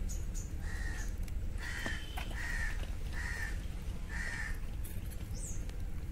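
A crow cawing repeatedly, about five caws under a second apart, over a steady low background rumble.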